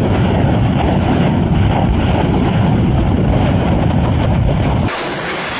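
BM-21 Grad multiple rocket launcher firing a salvo of 122 mm rockets: a loud, continuous rushing roar of rocket motors. Near the end it gives way abruptly to a thinner hiss like wind on the microphone.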